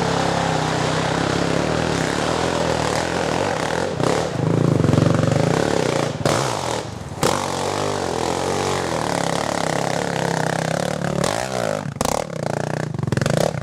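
Sport ATV (quad) engine running and revving, its pitch rising and falling as the throttle is worked, with a few sharp knocks.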